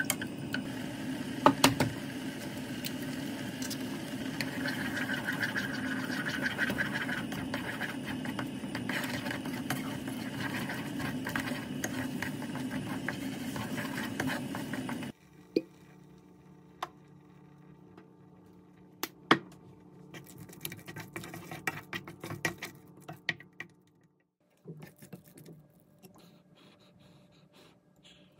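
Wooden spoon stirring and scraping thick noodle porridge in a pot on a gas burner, over a steady hum. About fifteen seconds in it gives way to much quieter room tone with a few sharp clicks of a spoon against the pot.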